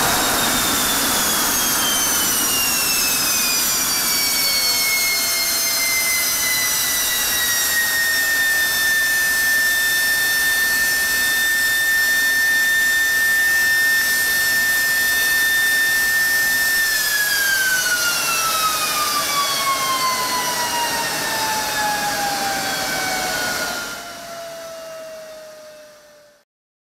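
General Electric F110-GE-100 turbofan running on a test stand, a loud roar with a high whine that falls in pitch, holds steady, then falls again about two thirds of the way through as the engine spools down. The sound drops and fades out near the end.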